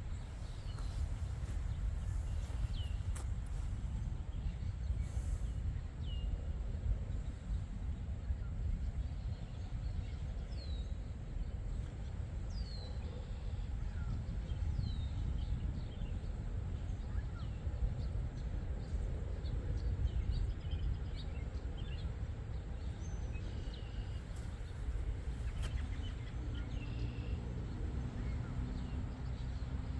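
Outdoor ambience: a steady low rumble under small birds calling in short, falling chirps, several in the first half.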